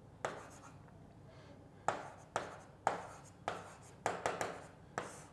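Marker writing on a board: a run of short, sharp strokes and taps, about eight of them, each trailing off in a brief scratch as a word is written out.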